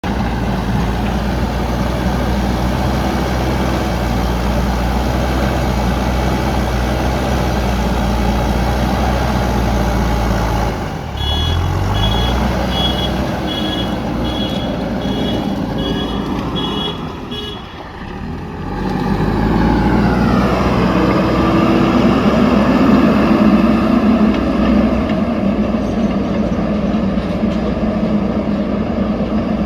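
JCB backhoe loader's diesel engine running steadily, with a reversing alarm beeping about nine times, one beep every two-thirds of a second or so, partway through. The engine briefly drops, then revs up and runs louder under load.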